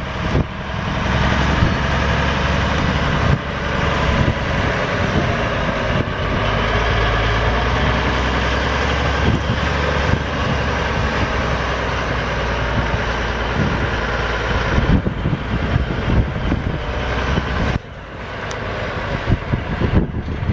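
The six-cylinder diesel engine of a 1979 FWD snow blower truck running steadily. Its sound changes about 15 seconds in, and it drops for a moment near the end.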